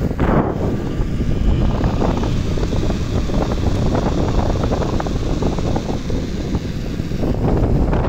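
Wind buffeting the microphone of a mountain bike's handlebar-mounted camera at riding speed on asphalt: a loud, steady low rumble with light rattles scattered through it.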